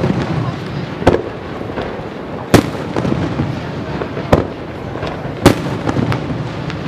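Fireworks display: aerial shells bursting in four loud, sharp bangs about a second and a half apart, with smaller pops and steady noise between them.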